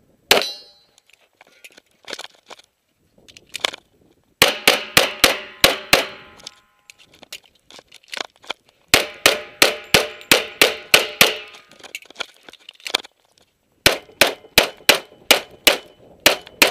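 Semi-automatic pistol fired in fast strings of several shots a second. There is one shot just after the start, then three bursts of roughly seven to ten shots each, with short gaps between them that hold only faint clicks.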